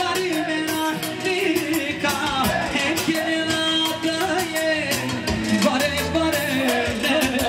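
Music with a singing voice and a steady, quick beat.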